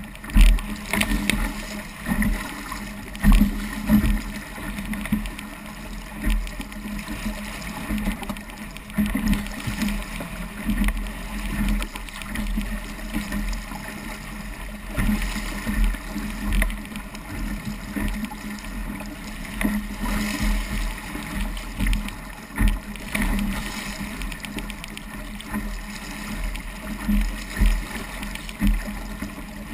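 Water rushing and splashing along the hull of a small Sabot sailing dinghy moving briskly through choppy water, with irregular thumps as the hull slaps into the waves.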